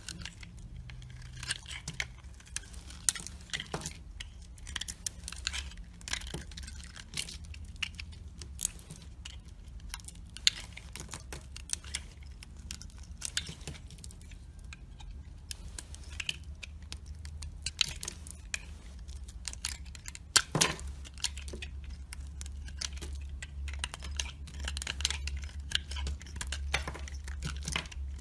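A blade carving and cutting dry soap, making many irregular crisp scrapes and crackles, with one sharper snap about three-quarters of the way through. A low steady hum runs underneath.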